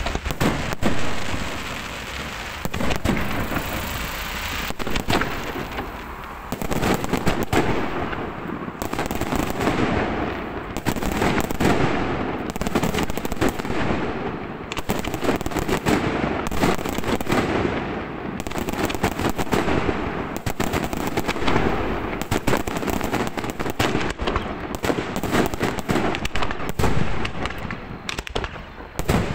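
Professional fireworks display: aerial shells and other pyrotechnics go off in a dense, near-unbroken string of bangs.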